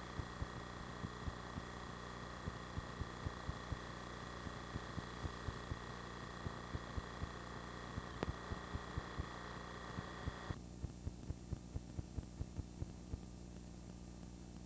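Playback noise of an old videotape transfer with no programme on it: a steady electrical hum with irregular clicks and pops a few times a second. A set of higher whining tones over the hum cuts off suddenly about ten and a half seconds in.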